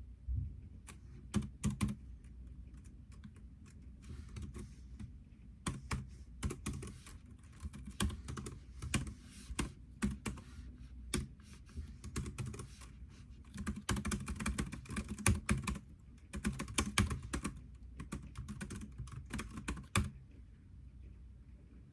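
Computer keyboard being typed on, keystrokes clicking in irregular runs with short pauses, falling quiet for the last couple of seconds.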